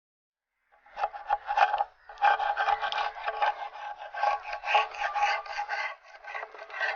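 A screwdriver scraping and prying at a dish mould set in hardened cement, in rapid repeated rasping strokes with a ringing tone, to work the dish loose. It starts about a second in, with a brief pause near the two-second mark.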